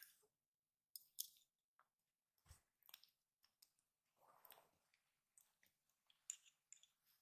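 Near silence with faint scattered clicks and light taps and a soft thump about two and a half seconds in: a kitten pawing and mouthing a small plastic toy traffic cone on carpet.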